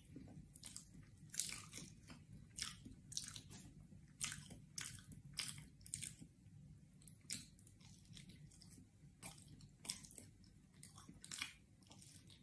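Close mouth sounds of someone eating sticky sweet potato: soft wet smacks and chewing clicks, irregular, about every half second.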